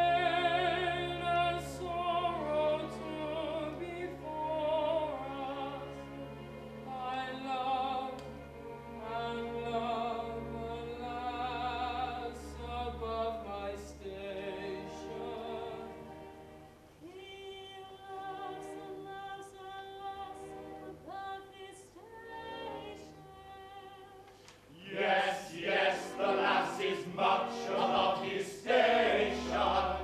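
Operetta singing: a tenor sings a lyrical solo with orchestral accompaniment, the voices unamplified and heard distant and roomy as from the back of a theatre. The sound grows louder and fuller for the last few seconds, as more voices join.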